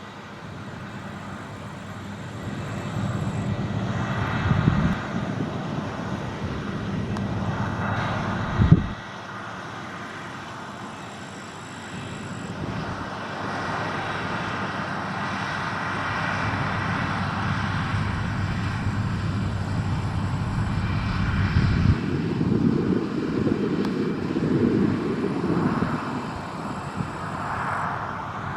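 Claas Lexion 670 combine harvester running at work in barley, a steady engine-and-machinery drone that swells and fades in loudness, with a short sharp thump about nine seconds in.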